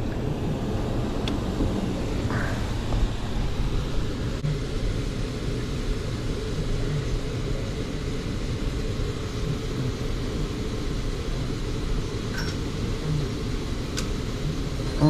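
Heat pump system's indoor air handler running on emergency heat: a steady, even rumble of the blower and moving air, with a few faint clicks in the second half.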